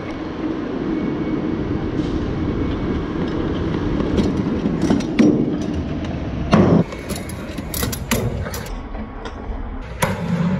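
Stunt scooter wheels rolling over pavement in a steady rumble, with a few sharp clacks; the loudest comes about six and a half seconds in, after which the rumble drops away.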